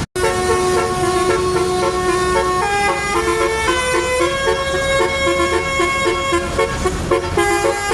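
Tourist bus's multi-tone "telolet" horn playing a tune: several horn notes sounding together and stepping from pitch to pitch, over the low rumble of the bus's engine.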